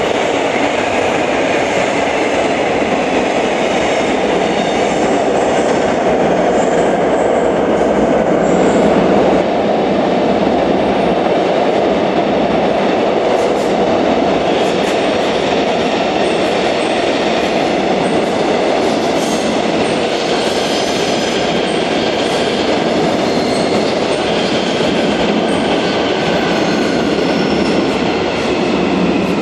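Airport Railroad electric commuter train moving on the tracks of an underground station: a steady loud rumble of wheels on rails, with a few light clicks in the middle.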